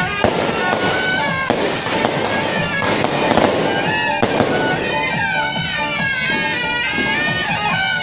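A string of firecrackers crackling rapidly, dense for about the first four seconds and thinning out after that. A shrill reed-horn melody with stepping pitch plays over it and comes to the fore in the second half.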